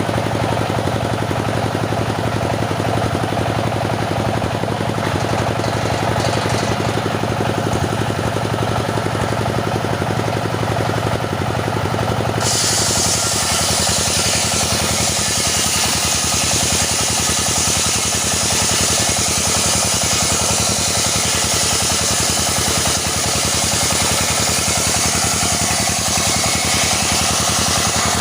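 Engine-powered circular saw running steadily with a fast even engine beat. About twelve seconds in, the blade starts cutting into teak wood, adding a loud high-pitched sawing hiss that continues until just before the end.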